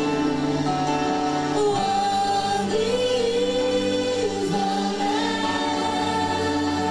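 Gospel song: voices singing long held notes with vibrato over sustained chords.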